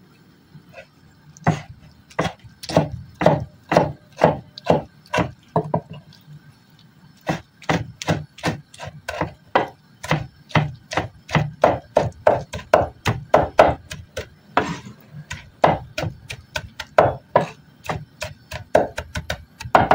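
Broad-bladed knife chopping roasted red peppers on a wooden cutting board: a run of sharp knocks of the blade on the wood, about two to three a second, with a short pause about six seconds in.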